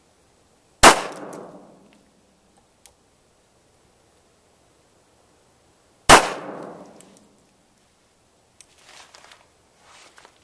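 Two shots from a GI 1911 pistol firing .45 caliber 200-grain semi-wadcutter bullets, about five seconds apart, each followed by a short echoing tail. Faint rustling near the end.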